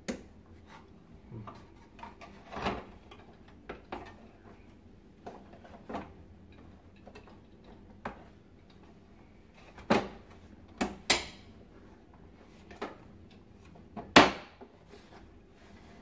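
Plastic housing parts of a Philips Marathon Ultimate FC9924 canister vacuum cleaner being fitted and pressed together by hand: scattered clicks and knocks, several close together about ten to eleven seconds in and the loudest near fourteen seconds.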